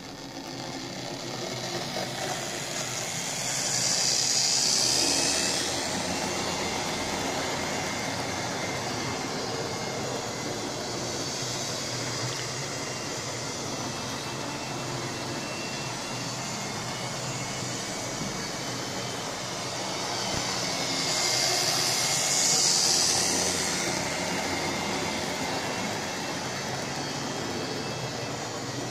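Lima OO gauge Class 47 model locomotive running on model railway track, its small electric motor whining steadily and its wheels rattling on the rails. It swells louder twice, with a hiss, about seventeen seconds apart.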